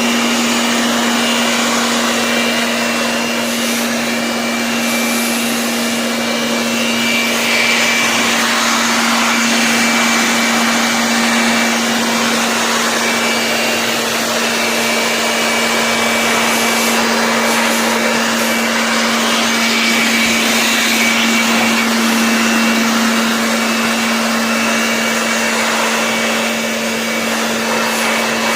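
Electric air blower running steadily at full speed: a loud rushing hiss over a constant motor hum, blowing dust out of an opened keyboard.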